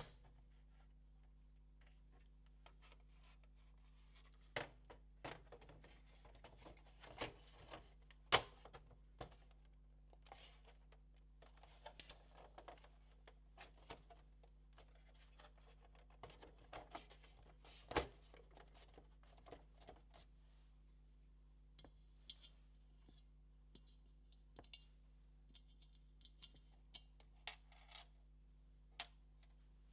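Faint, scattered clicks, taps and light scraping of hands working on the PS4 Pro's internal plastic and metal parts during reassembly, with the two sharpest knocks about 8 and 18 seconds in. A low steady hum lies underneath.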